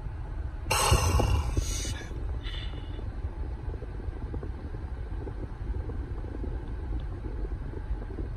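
A man crying, with a long noisy sniffle about a second in and a shorter, fainter one at about two and a half seconds, over a steady low rumble in a car's cabin.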